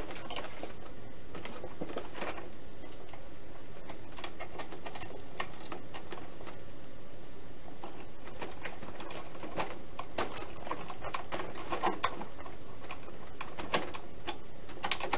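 Hands handling foam RC airplane parts and screws: scattered light clicks and scratches, more of them in the second half.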